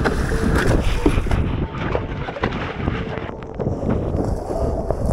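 Wind buffeting the microphone over the rush and splash of water along a Nordic Kayaks Nitro 600 surfski as it is paddled through choppy sea.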